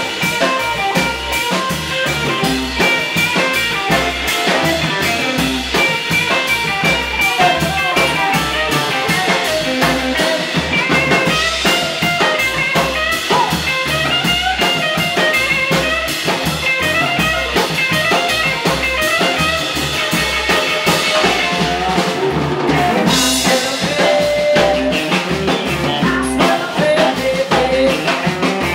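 Live rock and roll band playing: a woman's lead vocal over electric guitar, upright bass and drum kit, with a steady driving beat.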